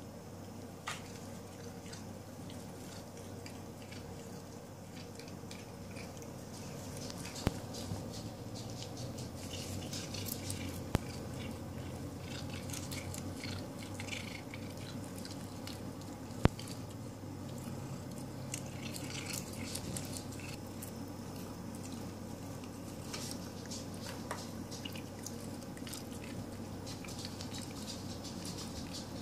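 Cats nibbling and chewing grass: faint scattered crunching and clicking over a steady low hum, with three sharp taps along the way.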